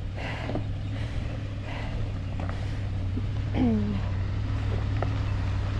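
Pickup truck engine running low and steady as it crawls at low speed up a rocky trail, with a few light knocks from the tyres and body going over rocks.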